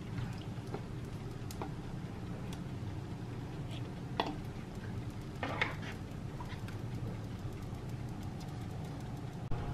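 Salmon-head and tomato broth simmering in an enamelled cast-iron pot while a plastic ladle skims it, with a few light knocks of the ladle against the pot, the clearest about four and five and a half seconds in.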